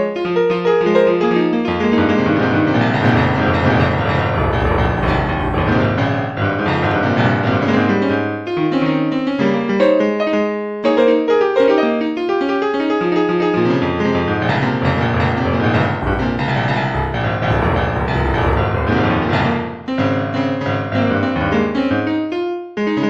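Instrumental background music led by a piano-like keyboard playing shifting chords, with deep bass notes swelling in twice.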